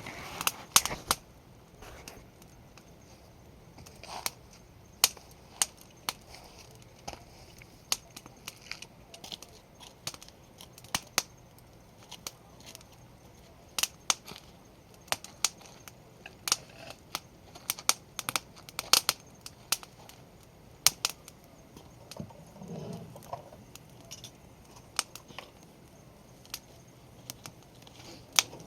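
Conifer firewood burning in a campfire, crackling with many sharp, irregular pops and snaps.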